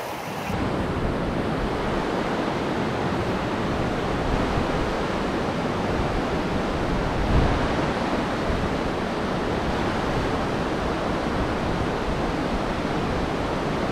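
Mountain stream rushing over boulders and rapids: a steady, unbroken roar of running water.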